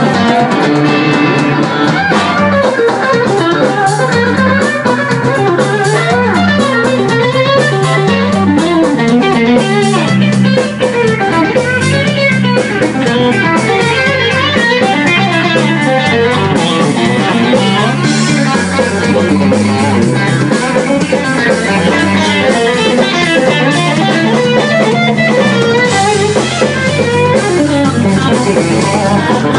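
Live blues band playing: two electric guitars, one taking a winding lead line, over bass guitar and drum kit with cymbals.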